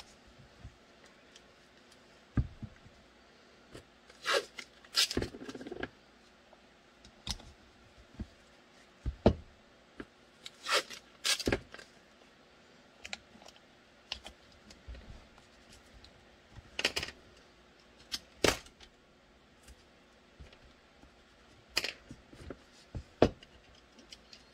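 Blue painter's tape being pulled, torn and pressed onto a pistol mold: a string of short rips and taps a second or two apart, with quiet handling in between.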